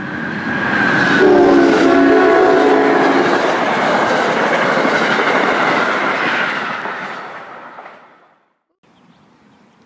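Amtrak Keystone train passing at speed, the horn on its rebuilt cab car sounding one chord blast of about two seconds a second in. The rumble and clatter of the train then fades away and cuts off near the end.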